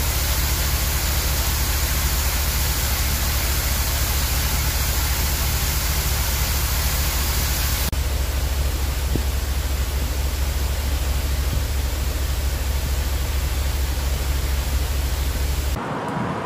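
Floodwater pouring off a railroad bridge and splashing onto the flooded road below: a steady, heavy rush of falling water. The sound changes abruptly to a quieter rush shortly before the end.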